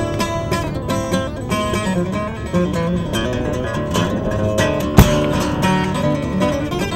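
Acoustic guitar playing a quick run of plucked notes, with a sharp click about five seconds in.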